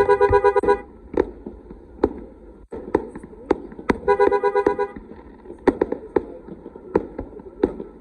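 Fireworks bursting overhead in irregular sharp bangs, while a two-tone car horn is honked in a quick stuttering burst at the start and again about four seconds in.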